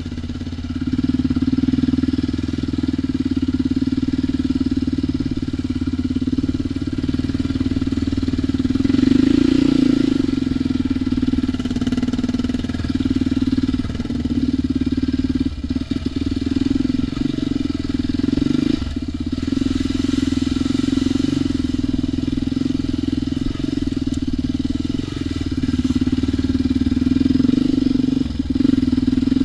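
ATV engine running at a fairly steady throttle while riding a trail, with a few brief dips in engine note.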